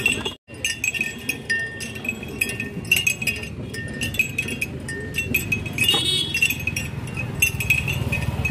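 Hand-cranked sugarcane juice press being turned, with small bells on the machine jingling over and over in a rapid, uneven rhythm above a steady low rumble of the rollers. The sound cuts out briefly about half a second in.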